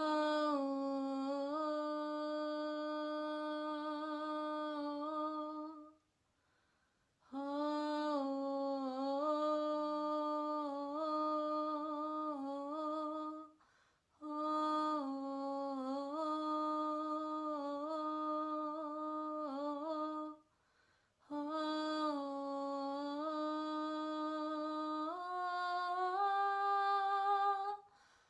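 A single voice humming long, mostly steady notes in four phrases of about six seconds each, with a short breath-like pause between them. The pitch steps a little within the phrases and rises near the end of the last one.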